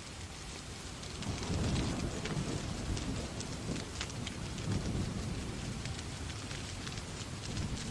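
Steady rain falling with scattered sharp crackles. A low rolling rumble of distant thunder swells about a second in and fades after a few seconds.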